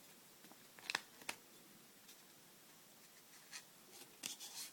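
Faint handling sounds of a knife and test paper during edge cutting tests: a couple of light ticks about a second in and a few short rustles near the end.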